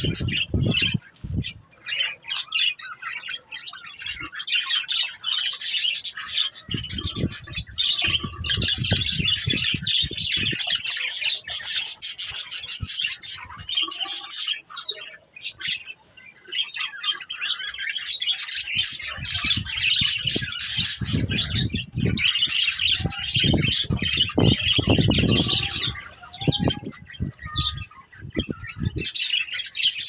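A flock of budgerigars chattering: many overlapping chirps and squawks with hardly a break. A low rumbling noise comes and goes a few times.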